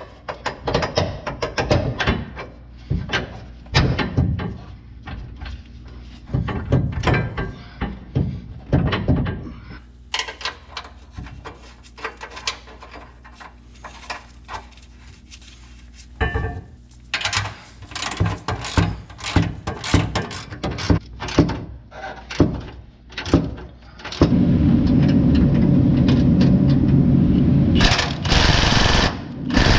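Irregular metal clinks and knocks as a bolt is worked through a plow mounting bracket on the truck frame. About 24 seconds in, a cordless impact wrench starts running the bolt, loud and steady, with a brief pause near the end.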